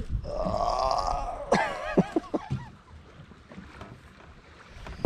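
A man's drawn-out, wavering vocal sound lasting about a second, then a few short falling bursts like laughter. A single sharp knock near the end.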